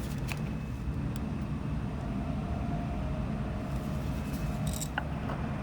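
Steady low background rumble, with a few faint clicks and a brief high hiss near the end.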